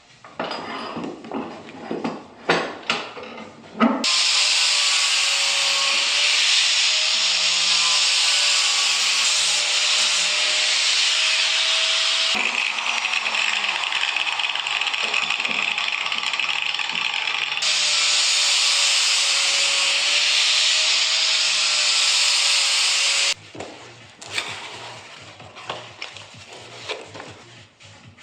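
Power carving tool with a burr cutting into a hardwood offcut: a steady, loud, high rasping noise over a wavering motor whine, with a couple of abrupt cuts in it. Knocks and clatter of the wood being handled come before and after.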